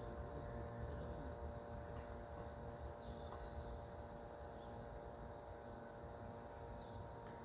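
Outdoor ambience of insects trilling steadily, with a bird giving a short, falling high call twice, about four seconds apart.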